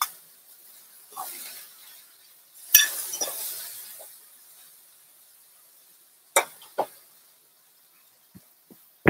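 A metal fork clinking and scraping against a skillet as wilting kale is stirred, about five sharp clinks with the loudest about three seconds in, followed by a short fading sizzle.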